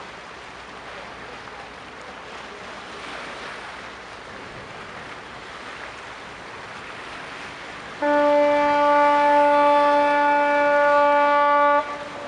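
A ship's horn sounds one long, steady blast of nearly four seconds over a hiss of wind and water. It cuts off abruptly and leaves a faint echo.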